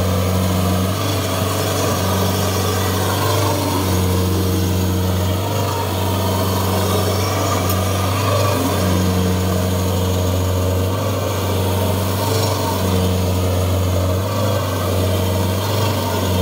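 Kubota DC60 combine harvester's diesel engine running steadily with the machine bogged in deep mud and unable to climb out, a higher hum coming and going every second or so over the engine note.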